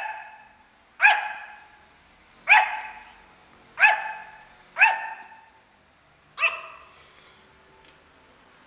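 Yorkshire terrier barking six times in short, high yaps spaced about one to one and a half seconds apart. Each bark rings briefly off the hard tiled room.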